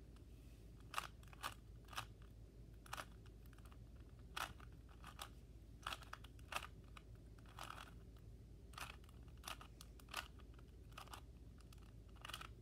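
Rubik's Cube layers being turned by hand: a quick, irregular run of faint plastic clicks and clacks, about one or two a second with short pauses between turns.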